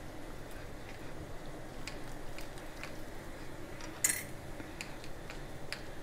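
Knife cutting steamed muthiya on a ceramic plate: faint scattered clicks of the blade meeting the plate, with one sharper clink about four seconds in.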